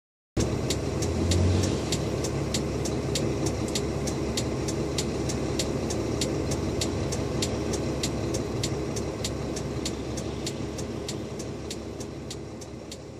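Tow truck engine idling, heard from the cab, with a steady sharp ticking about three to four times a second from the hazard-flasher relay. The sound starts suddenly and slowly fades toward the end.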